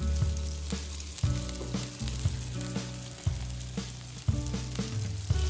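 Bacon-wrapped scallop skewers sizzling on a hot grill, with a steady crackle and sharp pops. Background music with low bass notes changing about once a second plays underneath.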